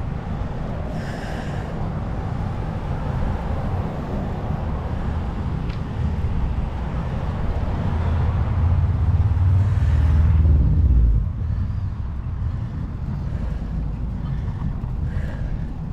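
Wind buffeting a bicycle-mounted GoPro's microphone while riding along a street, a dense low rumble mixed with road noise. It swells louder toward about ten seconds in and drops off abruptly at about eleven seconds.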